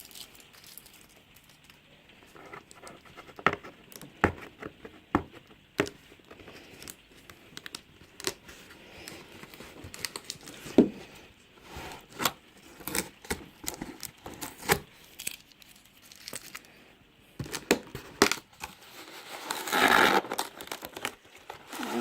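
Cardboard laptop box and its packaging being opened by hand: scattered rustles, taps and tearing, with a louder stretch of rustling near the end.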